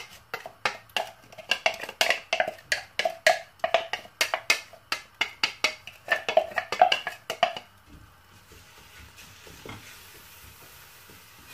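Quick knocks and taps against a stainless steel pot, ringing, about three or four a second, as grated garlic and onion are worked into it. They stop after about seven and a half seconds, leaving a faint sizzle of onion and garlic frying gently in oil.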